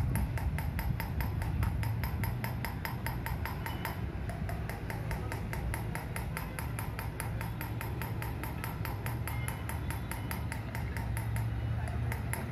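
A fast, even run of sharp metallic knocks, many a second without a break, over a steady low hum: metal being worked in an automobile repair workshop.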